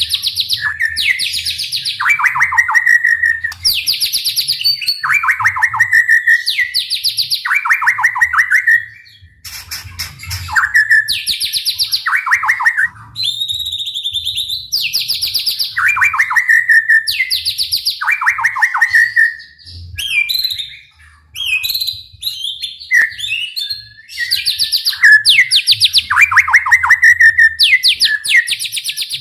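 White-rumped shama (murai batu) singing loudly in rapid-fire trilled bursts, the 'tembakan' that keepers prize. Each burst is a fast high trill followed by a lower, falling trill, repeated about every two seconds. The song breaks off briefly about nine seconds in, and varied notes replace the trills about twenty seconds in.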